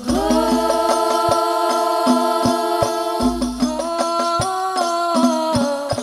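Hadrah al-banjari performance: several female voices singing an Islamic devotional song (sholawat) in long held notes, over rebana frame drums beating a steady rhythm with deep bass drum thumps.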